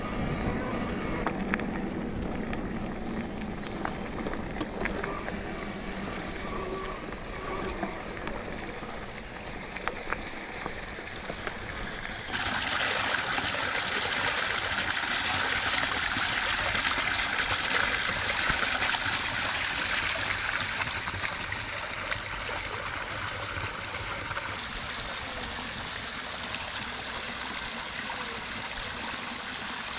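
Mountain bike riding over a dirt forest trail, tyre rumble with scattered clicks and rattles. About twelve seconds in this cuts suddenly to spring water pouring from a spout into a stone basin, a loud steady splashing hiss that grows fainter near the end.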